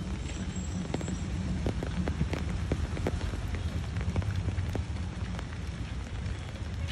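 Rain falling on the water and the shore, with scattered sharp drop hits, thickest in the middle, over a steady low rumble.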